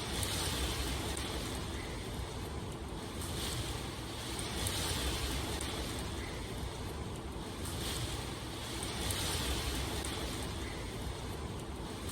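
Rain ambience: a steady rushing hiss that swells and eases every few seconds over a low rumble.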